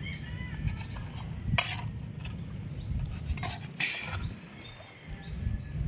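A knife knocking and scraping on a wooden chopping board as peanut worms are cut, with a few sharp knocks. Several short, rising, high-pitched chirps recur through it over a low steady rumble.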